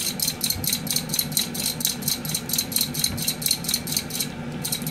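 A hand-held vegetable slicer shaving a cucumber into thin slices, in quick, even strokes of about five a second, with a brief pause near the end.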